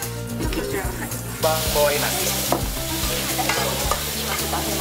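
Vegetables stir-frying in a wok: a steady sizzle sets in about a second and a half in and keeps going while the food is stirred.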